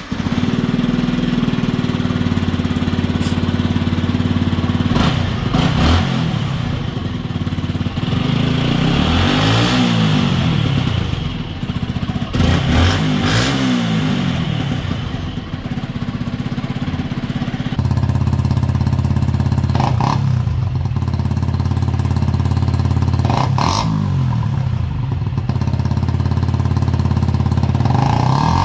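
Yamaha YZF-R125 single-cylinder 125 cc four-stroke engine idling through its exhaust, blipped on the throttle several times so the pitch rises and falls back each time. About two-thirds of the way through, the idle tone changes abruptly.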